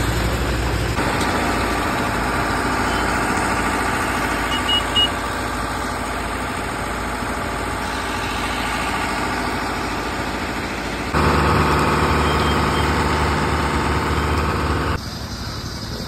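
Engines running steadily. The sound changes abruptly at cuts about a second in, about eleven seconds in and about fifteen seconds in.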